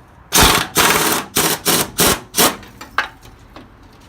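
Pneumatic impact wrench run in about six short trigger bursts, each a loud rattling hammer, working a bolt off.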